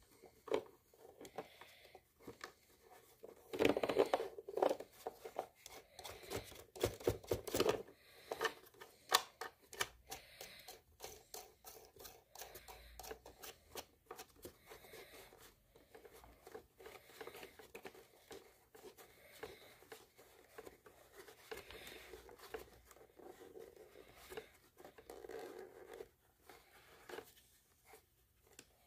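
Hand handling noises from a 12-volt accessory socket being seated and tightened into an ATV's plastic body panel: irregular clicks, scrapes and rubbing of plastic, busiest a few seconds in.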